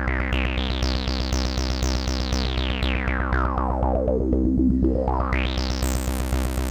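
Synthesizer sawtooth note played through a resonant low-pass filter whose cutoff sweeps up, falls to low about midway, then rises again near the end. The resonant peak picks out the note's harmonics one after another, the effect known as a harmonic arpeggio.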